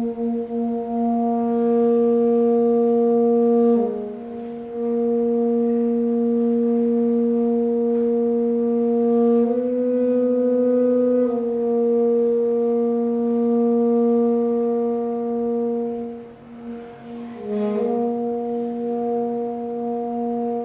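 Tenor saxophone playing long held notes on nearly one low pitch, breaking off briefly about four seconds in and again near the end, with a slightly higher note held for a couple of seconds in the middle.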